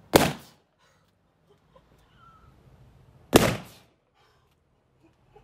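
A 16-inch pearlised latex balloon bursting as it is blown up past its limit: two sharp, loud pops, the first just after the start and the second about three seconds later.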